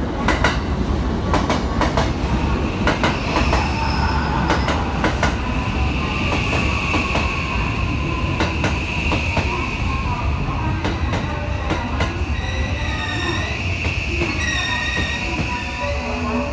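Electric commuter train running in on the neighbouring platform track and slowing. Its wheels click over the rail joints in the first few seconds, then a steady high squeal and a falling whine carry on as it brakes.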